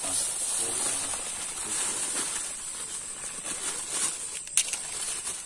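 Powdered bait mix pouring from a plastic sack into a plastic bucket: a steady rushing hiss that thins out toward the end, with one sharp click about four and a half seconds in.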